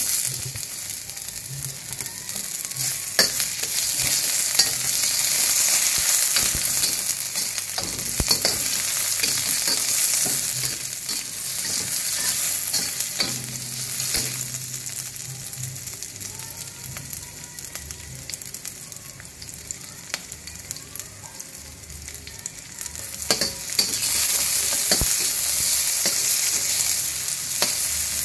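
Shallots, garlic, chillies and tomato sizzling in hot oil in a stainless-steel wok, stirred with a slotted metal spatula that clicks and scrapes against the pan. The sizzle is loud as the ingredients go in, eases midway, and grows louder again near the end.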